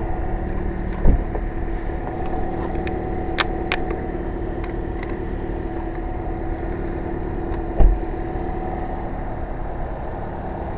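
A jump-started Toyota's engine idling steadily, left running so the alternator can charge a weak battery. A couple of dull thumps, about a second in and again near the end, and a few sharp clicks can be heard over it.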